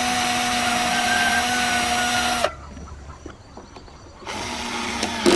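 Cordless drill running into a wooden roof panel in two bursts: a steady whine for about two and a half seconds, then a shorter, quieter run near the end.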